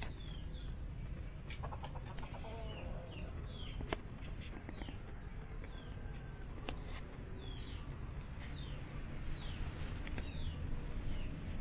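Birds chirping: repeated short high chirps, each falling in pitch, one or two a second, over a steady low rumble.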